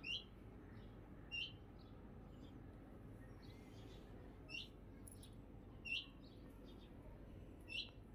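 A bird chirping: five short, high chirps spaced one to three seconds apart, over faint background noise.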